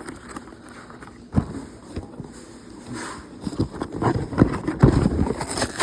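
A cardboard toy box being handled and worked open by hand: a sharp knock about a second and a half in, then irregular knocks, scrapes and crinkling that grow busier in the second half.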